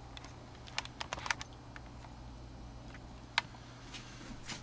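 A few light, sharp clicks and taps: a quick cluster about a second in and one louder click a little past three seconds, over a low steady hum.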